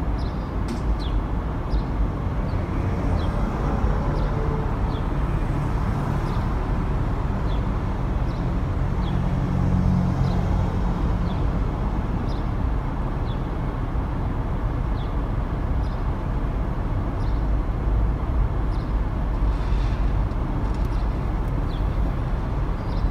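Steady low rumble of a car idling in traffic, heard from inside the car, with faint short ticks scattered through it.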